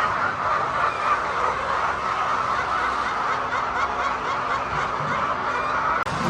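A large flock of laying hens clucking and chattering together, a dense, steady din of many overlapping calls that cuts off abruptly near the end.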